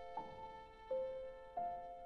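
Background music: a slow melody of single piano notes, a new note about every three quarters of a second, each ringing on and fading.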